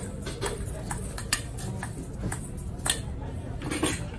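Metal spoon clinking and scraping against a stainless steel bowl as ground nuts are spooned out, a string of irregular sharp taps.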